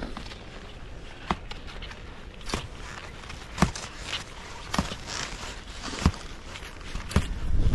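Skis on climbing skins stepping uphill through snow: a crunching stride about every 1.2 seconds, steady and even.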